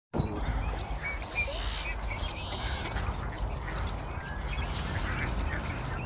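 A mixed flock of ducks on the water, mallards and pintails among them, calling: many short, scattered quacks and chirps over a steady low rumble.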